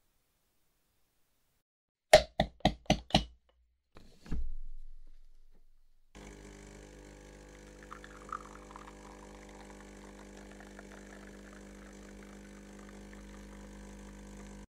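Five quick, sharp knocks in a row, then a single heavier knock that fades out over about a second and a half. From about six seconds in, a steady low hum with several steady tones sets in.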